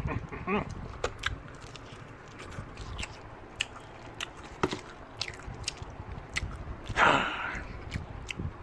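A person chewing a bite of crispy fried chicken drumstick, with scattered crunchy clicks. There is one brief louder noise about seven seconds in.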